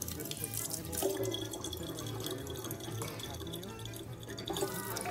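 Tap water running in a thin stream into a large plastic water bottle, with music playing over it.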